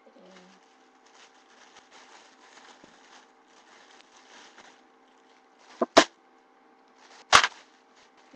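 Faint rustling as items are rummaged through and handled, then two short, loud crackles about six and seven and a half seconds in.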